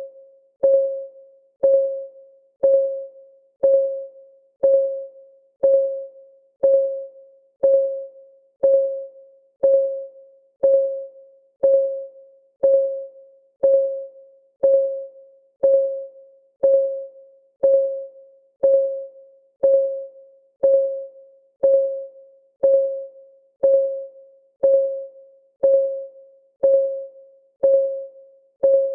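Countdown timer's clock-ticking sound: a steady tick about once a second, each a sharp click with a short ringing tone that dies away before the next.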